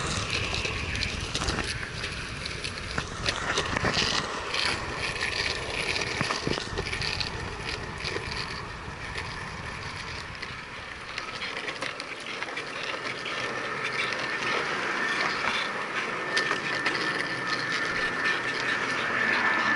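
Skateboard wheels rolling and rumbling over a concrete bridge path, with frequent small clicks and rattles from the board. A steady high whine from a jet aircraft passing overhead appears about halfway through and grows louder toward the end.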